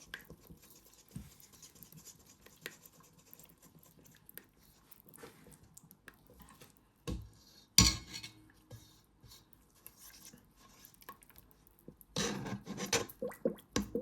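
Spoon and container handling while nettle powder is added to soap batter: faint scraping and small clinks, a single louder knock about 8 seconds in, and a short run of louder knocks and clatter near the end.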